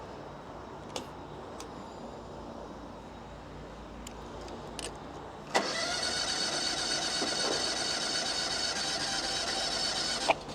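Mini skid steer loader's starter motor cranking the engine: a steady high whine that cuts in suddenly about halfway through and runs for about five seconds, ending with a click, after a few faint clicks over a low hum.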